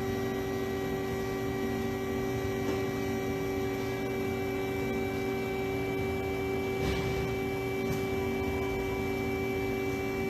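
2014 Haas ST-10 CNC lathe running under power: a steady machine hum and whine made of several fixed tones over a constant rush, with a short louder swell about seven seconds in.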